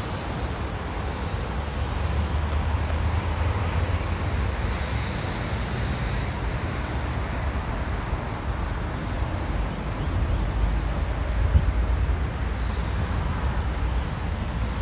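Steady hum of road traffic, cars passing, with a heavy low rumble.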